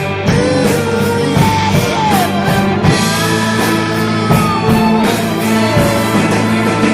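Rock music with electric guitar, bass and drums, a lead melody bending up and down in pitch.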